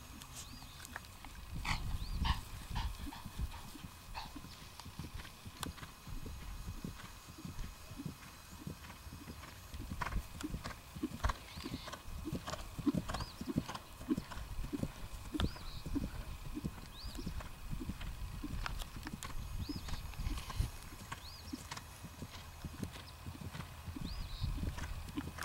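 A ridden horse's hooves striking grass turf in a steady, repeated gait rhythm.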